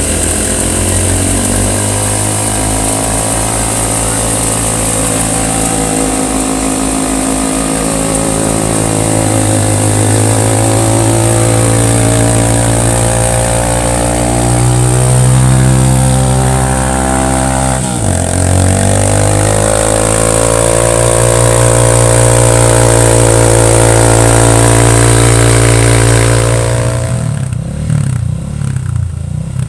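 Motorcycle engine running hard under load as its rear tyre drives the friction wheel and long shaft of a flour mill, its speed rising and falling. About two-thirds through it dips sharply for a moment and recovers, and near the end the engine eases off and the sound falls away.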